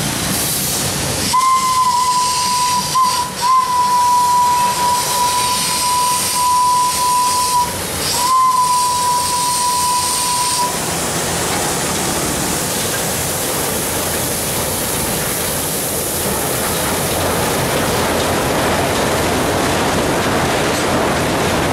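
Orenstein & Koppel 700 mm gauge steam locomotive sounding its whistle at one steady pitch in long blasts, broken twice, for about nine seconds, with steam hissing. The whistle then stops and the passing train leaves a steady noisy hiss and rumble.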